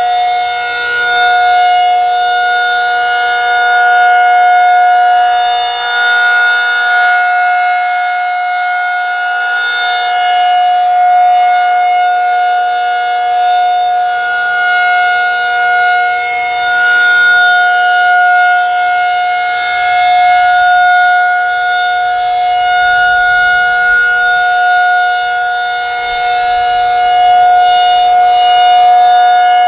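Federal Signal 2001-SRN rotating outdoor warning siren sounding its steady alert tone at about 722 Hz during its monthly test. The level swells and fades slowly as the siren head rotates.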